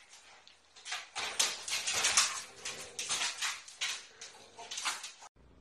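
A metal wire dog pen rattling and clattering as a French bulldog scrambles over the top of its gate, in a run of irregular knocks and scrapes starting about a second in. It cuts off suddenly near the end.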